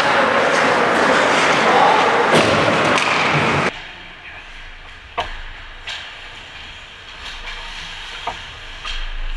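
A loud steady rushing noise cuts off abruptly, followed by a few scattered sharp knocks and thumps of puck and sticks in an ice hockey rink.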